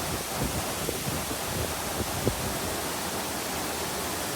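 Waterfall rushing steadily, an even wash of falling water, with a few brief low bumps in the first two seconds or so.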